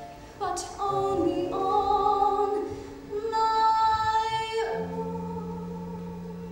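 A female solo voice singing the closing phrase of a musical-theatre ballad with accompaniment, holding a high note, then sliding down a little past halfway into a long, low sustained ending.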